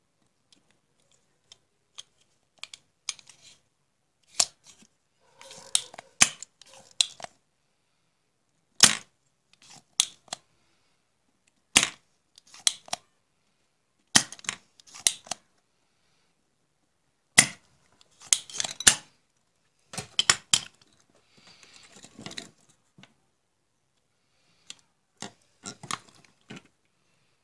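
Spring-loaded desoldering pump (solder sucker) snapping with sharp clicks a few seconds apart as it draws molten solder off the joints of a CFL's ballast circuit board, with quieter rattles of the pump being re-cocked and handled between shots.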